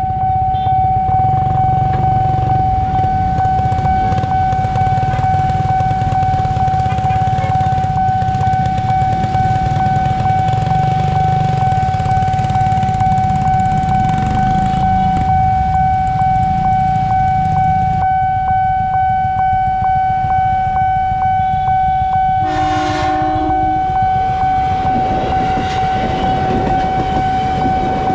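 Nippon Signal level-crossing siren sounding one steady, high electronic tone over a low traffic rumble. About 22 seconds in, a KRL commuter electric train gives a short horn blast and starts to rumble past.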